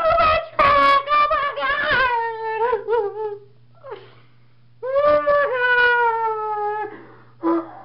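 A person's voice wailing in exaggerated mock sobs: long, drawn-out whimpering cries with sliding pitch, in two stretches with a short gasp between them about four seconds in.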